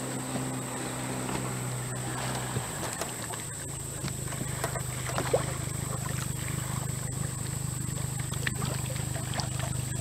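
Steady low hum of a boat motor running, with a few sharp splashes from a hooked fish thrashing at the water's surface, the loudest about five seconds in.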